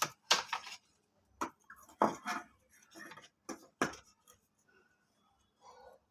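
Small metal tools and parts clicking and clinking against each other and the workbench as they are handled. There are about eight sharp clicks in the first four seconds, then only faint handling noise.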